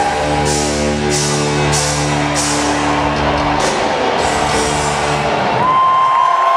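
Live rock band holding its final chord, with a run of drum and cymbal hits over it. About five seconds in the music stops and the arena crowd cheers, with a long shrill whistle.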